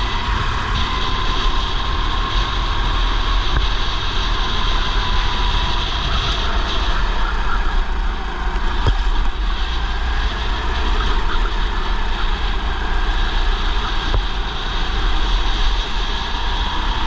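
Racing kart engine running at speed, its note dropping in the middle and rising again near the end as the kart brakes through a corner and accelerates out. Heavy wind rumble on the helmet-mounted microphone.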